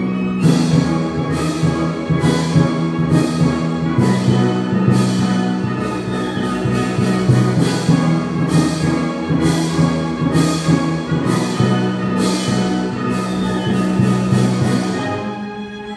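Live orchestra playing: sustained low string notes under a steady beat of sharp percussion strokes, about three every two seconds, which come quicker near the end before the music eases off.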